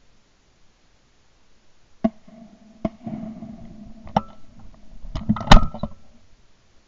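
Shotgun shots on a driven pheasant shoot: single sharp reports about two, three and four seconds in, then a quick cluster of shots near the end, the loudest about five and a half seconds in, over a steady low tone.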